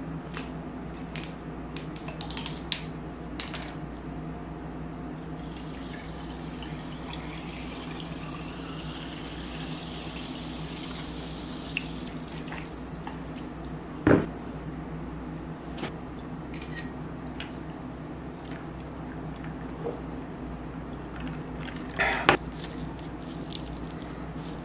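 A drink poured from a bottle into a glass, the pour rising in pitch as the glass fills over several seconds. Later come two sharp knocks and some small clicks of tableware on the table.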